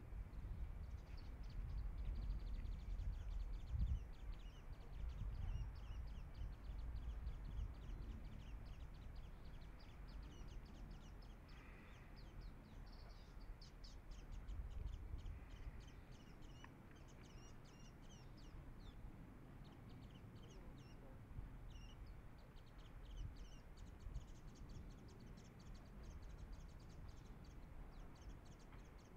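Boeing 747-400's four jet engines giving a low rumble as the airliner climbs away, slowly fading. Birds chirp with quick, high-pitched calls throughout.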